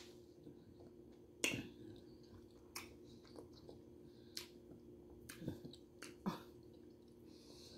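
Faint chewing of a mouthful of kangaroo sausage in a bun, with a handful of short, wet mouth clicks spread out over the seconds.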